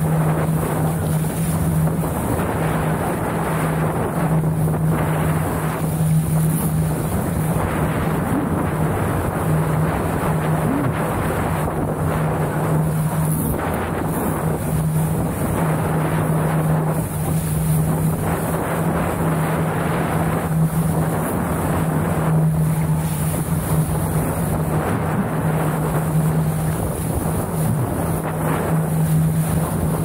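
Strong wind buffeting the microphone and water rushing past a small sailboat under sail, the noise swelling and easing every couple of seconds, with a steady low hum underneath.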